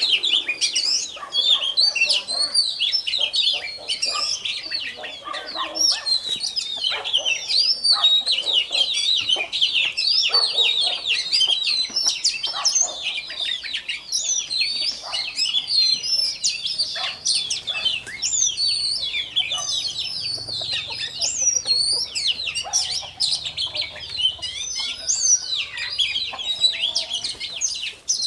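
Caged oriental magpie-robin singing a long, varied song of quick whistles and chirps, with chickens clucking.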